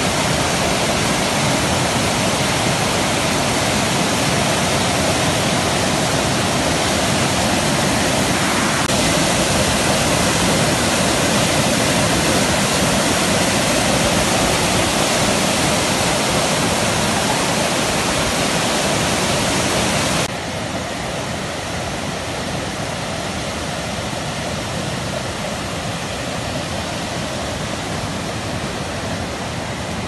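A torrent of muddy water cascading over boulders below a tall waterfall: a loud, steady rush of water. It drops a little in loudness about two-thirds of the way through.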